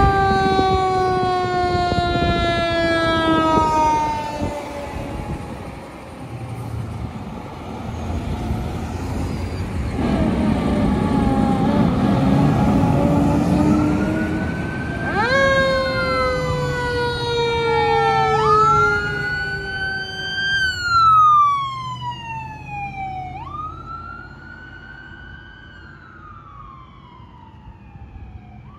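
Fire apparatus siren wailing, with long glides that rise and fall in pitch over the rumble of the truck's engine. It gets quieter after the last few wails.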